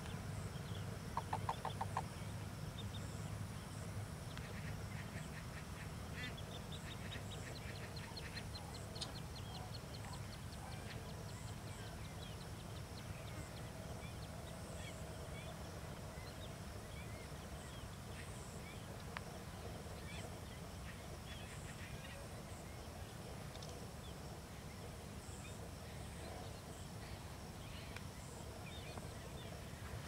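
Wild birds calling at a wetland: scattered chirps throughout, a quick run of calls about a second in, and fast trilled series of high pulses between about five and eleven seconds in, over a steady low rumble.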